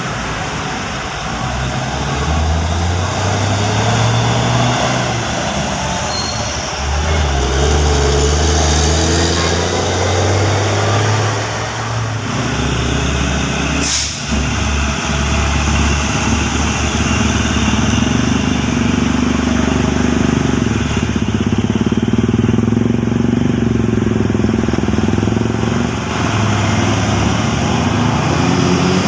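Heavy diesel trucks driving past close by, their engines running with a pitch that rises and falls as they pull away and change gear; in the second half an orange tanker truck passes close. A single sharp click about halfway through.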